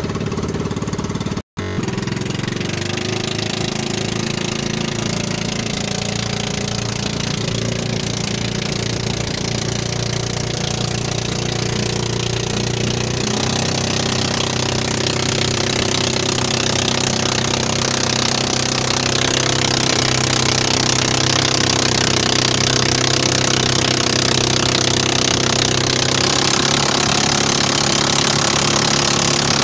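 Small engine of a motorized outrigger boat running steadily while underway, with water hissing along the hull, louder in the second half. The sound cuts out for an instant about one and a half seconds in.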